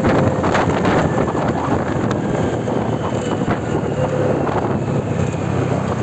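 Steady roadside traffic noise with vehicle engines running, and wind buffeting the microphone.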